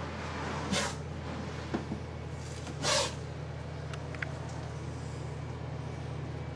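A plastic snake-rack tub being pulled out of its rack: two short sliding scrapes, the second about three seconds in and the louder, with a few light clicks, over a steady low room hum.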